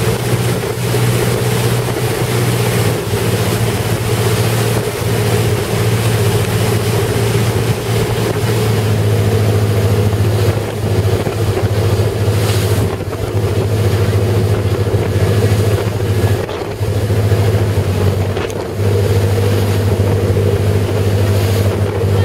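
A chase motorboat's engine running flat out with a steady low drone, briefly dropping about three-quarters of the way through. Wind buffets the microphone and water rushes past the hull.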